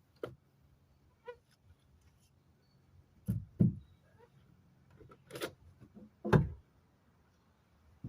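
Scattered knocks and thumps of framing parts being handled and fitted into place. A pair of knocks comes about three seconds in, and a deep thump, the loudest, comes a little past six seconds.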